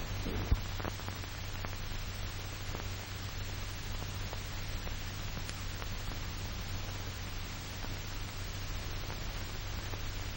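Surface noise of an old film soundtrack: a steady hiss over a low hum, with scattered faint crackles and one louder pop about half a second in.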